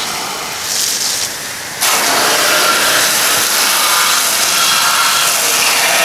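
Water spraying from a garden hose nozzle down through the fan grille onto the fan and coil of an air conditioner's outdoor condenser unit, a steady hiss that jumps louder about two seconds in.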